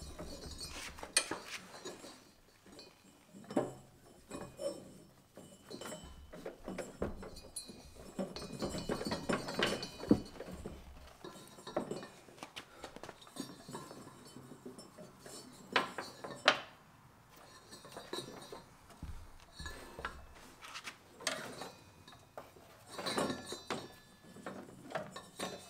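Rubber V-belt being worked off its pulleys and dragged out through the steel frame of a Bad Boy Maverick zero-turn mower, with irregular metallic clinks and knocks as it catches on the frame. Two sharper knocks stand out, near the middle and about two-thirds in.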